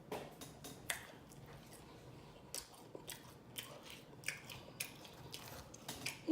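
A person chewing food close to the microphone, with wet mouth clicks and lip smacks at an uneven pace of about two a second.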